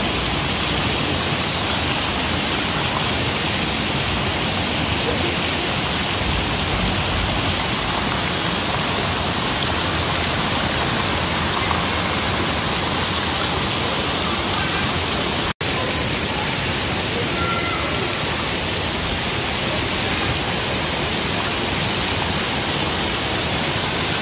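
Water pouring and splashing steadily from the spouts of a pool's water-play structure into shallow water. The rush cuts out for an instant about two-thirds of the way through.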